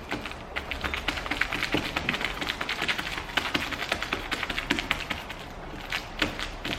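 Lumpy, sticky homemade slime being kneaded and squeezed by hand, giving a rapid, irregular stream of small wet clicks and crackles.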